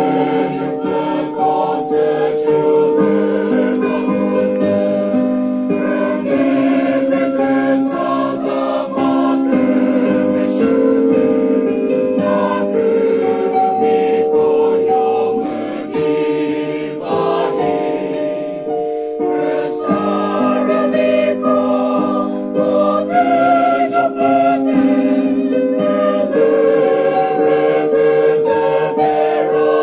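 Mixed choir of men and women singing an anthem together, with long held notes.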